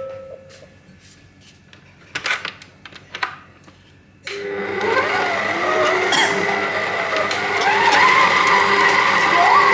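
A few knocks and clatter around the stand mixer's bowl, then the stand mixer's motor starts abruptly about four seconds in and runs, kneading bread dough with its dough hook, with a whine that wavers in pitch.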